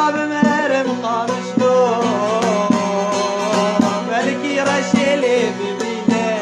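Music from a sad Kurdish song: a wavering, ornamented melody over a steady low drone, with a regular beat about once a second.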